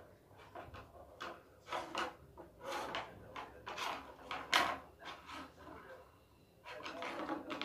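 A kitten pawing and batting a small object across the top of a piece of furniture: irregular scrapes, rubs and light knocks of claws and the object on the surface, the sharpest knock about four and a half seconds in.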